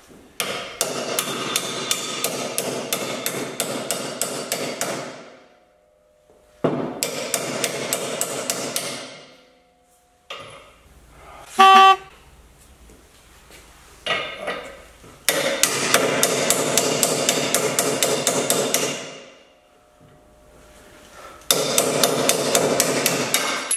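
A hammer striking a socket used as a drift to drive the seized bushing out of a Porsche 911's cast-aluminium rear trailing arm. The blows come in four long runs of about four a second. The bushing's inner ring is corroded onto the parts around it. About halfway through there is one short, loud ringing tone.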